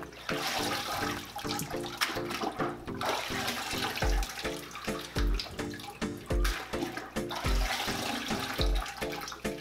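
Water sloshing and splashing in a bucket as a canister filter's media tray is rinsed by hand. Background music with a steady beat plays underneath, and a deep kick drum about once a second comes in about four seconds in.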